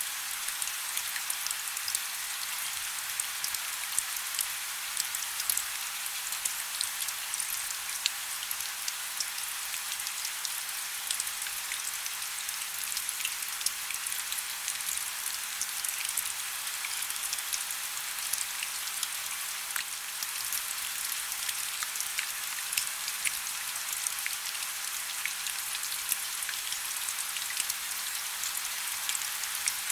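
Heavy rain: a steady hiss of rainfall thick with the sharp patter of individual drops striking a surface.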